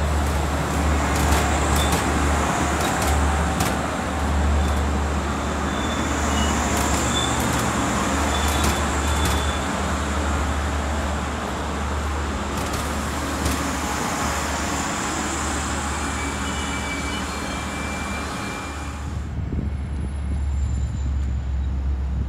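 Heavy vehicle engine running with a steady low rumble under a broad rushing noise. The rushing drops away suddenly about nineteen seconds in, leaving only the rumble.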